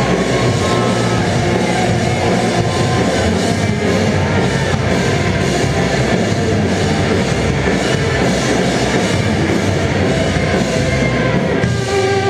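Rock band playing live on stage: distorted electric guitars over a full drum kit, loud and dense. Just before the end the drums drop out and guitar chords ring on.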